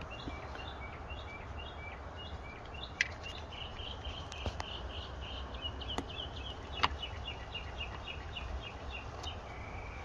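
A bird chirping over and over in short repeated notes over a low outdoor rumble. A few sharp clicks cut through, the loudest about three seconds in and just before seven seconds, from the plastic seat belt guide being pushed into its mount on the rear seat-back.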